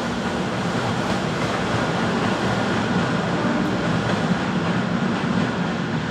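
Fujikyu 6000-series electric train (ex-JR East 205 series) with MT61 DC traction motors, departing a station and running past on the rails, slowly getting louder. Its steady running noise carries a faint high motor whine.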